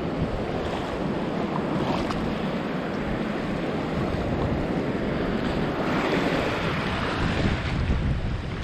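Shallow Baltic seawater splashing and sloshing around the legs of a wader walking through the surf, with wind buffeting the microphone. The splashing grows a little louder about six seconds in.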